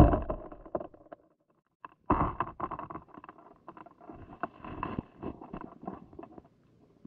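Muffled thump, then after a short gap another thump followed by a few seconds of irregular knocks, clicks and rustling, heard through an underwater camera's housing below the ice.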